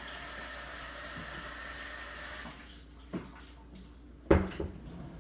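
Kitchen sink tap running in a steady hiss and shut off suddenly about halfway through, followed by a light click and then a louder knock, like utensils being handled.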